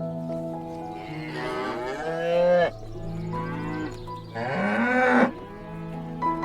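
A cow mooing twice, a long call and then a shorter one, over soft background piano music.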